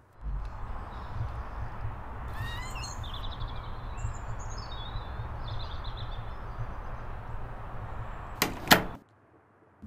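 Outdoor ambience with wind rumbling on the microphone and small birds chirping a few times early on. Near the end come two sharp knocks, the loudest sounds: a door banging shut.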